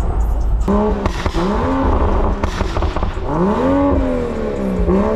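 Straight-piped, stage 2 tuned BMW engine and exhaust revving under acceleration. The pitch climbs and falls several times, with the longest climb about three seconds in.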